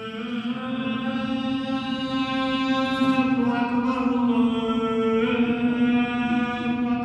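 A man's solo voice chanting in Arabic, the Islamic liturgical chant of the Friday prayer gathering, holding one long melodic note with a slight shift in its tone about five seconds in.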